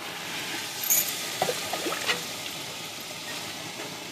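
Hot water being poured from a jug onto rice in a cooking pot, adding the cooking water: a steady splashing pour that slowly eases off, with a brief clink about a second in.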